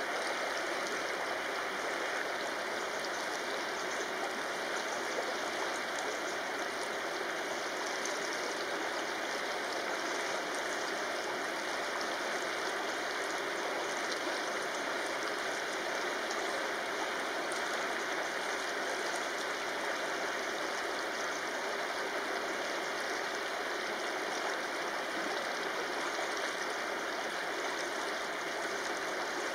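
Shallow river running over stones in a steady, even rush of flowing water.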